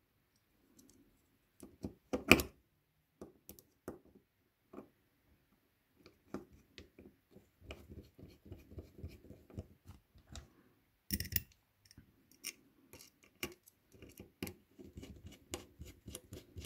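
Small screwdriver turning slotted screws into the metal cover of a Hema pencil sharpener's three-jaw chuck. Short metallic clicks and scrapes, with sharper knocks about two and eleven seconds in. The screws go in easily.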